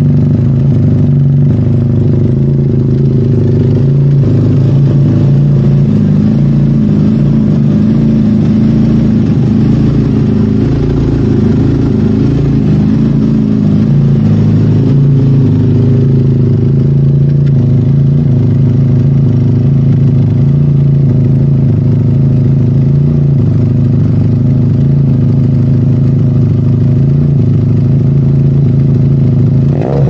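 Benelli 302S's parallel-twin engine idling steadily through a Yoshimura carbon slip-on exhaust while warming up after a cold start, heard close to the muffler.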